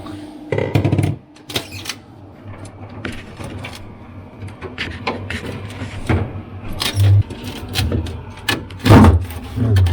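Irregular clicks, knocks and rattles of refrigerator panels and plastic parts being handled and worked loose, with louder knocks about seven and nine seconds in.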